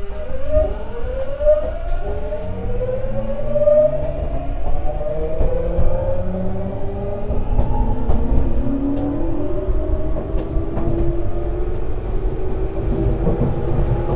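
Tokyu 9000 series Hitachi GTO-VVVF inverter and traction motors accelerating the train from a stop: a cluster of rising whines that step to new pitches each time the inverter changes modulation mode. Wheels rumble on the rails underneath, heard from inside the passenger car.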